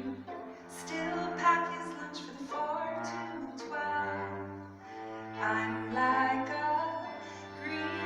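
A slow song performed live: a sung melody over long sustained low notes, each held for a second or two before moving to the next, with a bowed-string sound like a cello.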